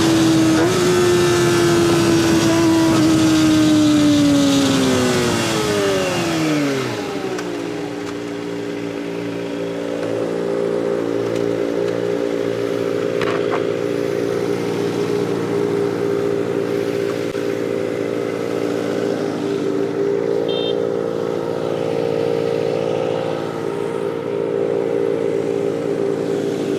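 Kawasaki ZX25R inline-four with a Sphere stainless full-system exhaust, its revs dropping from high with a steadily falling pitch over about seven seconds as it slows, then idling steadily.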